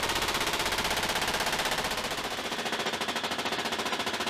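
A helicopter door gunner's heavy machine gun firing a sustained automatic burst: a rapid, even stream of shots with no break.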